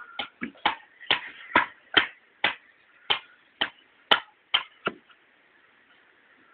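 A run of about a dozen sharp knocks, roughly two a second, stopping about five seconds in.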